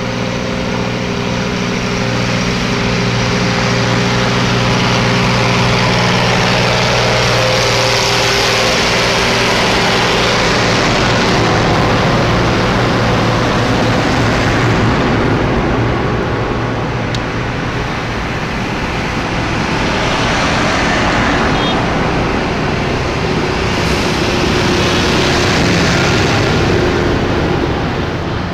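Large farm tractors driving past one after another on a paved road, their engines and tyres loud and continuous. A steady engine drone holds for the first half, then the noise swells and eases a few times as successive tractors come by.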